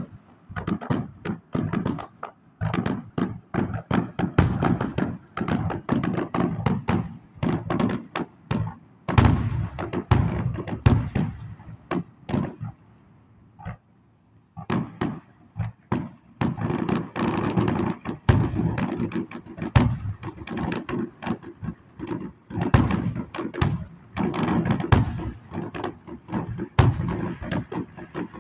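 Aerial fireworks going off in rapid succession: many sharp bangs, one on top of another, each with a short echoing tail, with a brief lull about halfway through.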